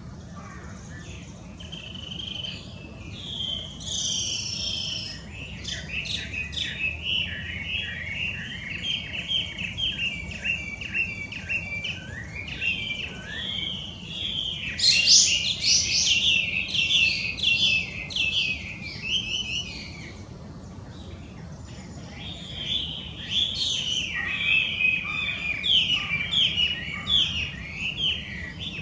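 Chinese hwamei singing a loud, varied song of rapid whistled phrases that jump up and down in pitch. The song stops for a few seconds about two-thirds of the way through, then starts again.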